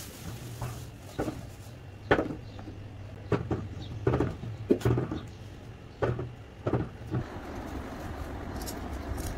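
Firm green mangoes handled on a glass tabletop: about nine sharp knocks and clunks over a low steady hum. A steady rushing noise takes over from about seven seconds in.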